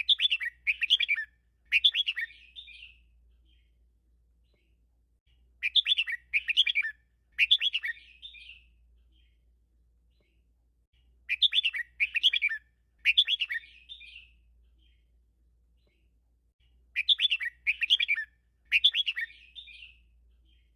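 Red-whiskered bulbul singing: four phrases about five and a half seconds apart, each a quick run of bubbly whistled notes in two bursts.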